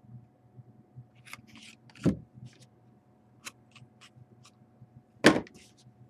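Trading cards being handled and laid on a table: scattered light ticks and rustles, with two duller knocks, one about two seconds in and one about five seconds in. A faint steady hum runs underneath.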